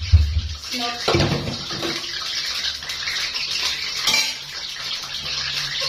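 A steady hiss, with a steel pot clinking as it is set down about a second in.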